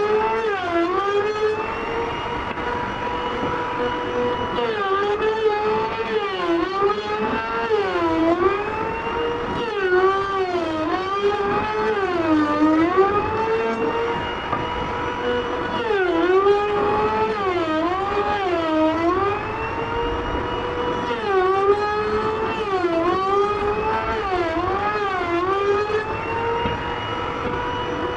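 Electric wood router (trimmer) running with a steady high whine, its pitch sagging again and again as the bit bites into the wood under load and climbing back between cuts.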